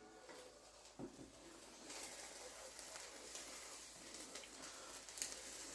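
Faint sizzling of a folded omelet frying in a pan, with a soft click about a second in.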